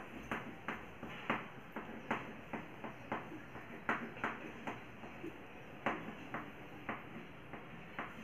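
Chalk tapping on a blackboard in short drawing strokes: sharp, irregular clicks, roughly two a second.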